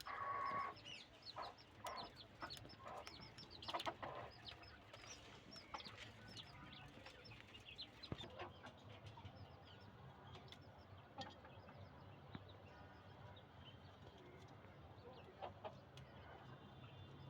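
A hen clucking among her chicks, which peep in many short, high cheeps. The calls are busiest in the first few seconds, then thin out and grow fainter.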